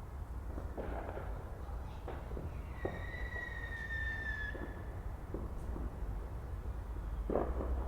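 Fireworks going off: scattered pops and bangs over a steady low rumble, with a louder burst near the end. From about three seconds in, a whistling firework gives one high whistle lasting nearly two seconds and falling slightly in pitch.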